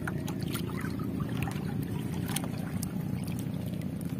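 Shallow sea water sloshing and lapping against a small boat's hull as a man wades beside it, with many small scattered splashes and ticks over a steady low rumble.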